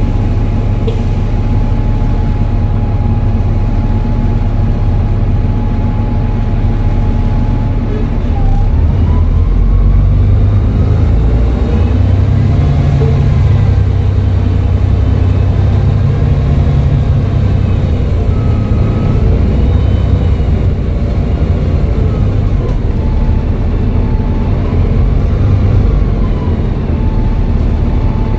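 Volvo B7TL bus's 7-litre six-cylinder turbodiesel running on the move, with a loud low rumble and a turbo whistle over it: a steady whistle at first, then whistles that rise and fall in pitch as the bus pulls away and changes speed.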